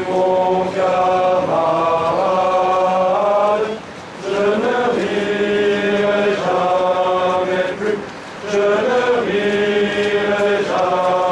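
Voices singing a slow chant together in long held notes, phrase after phrase, with a short pause between phrases about every four seconds.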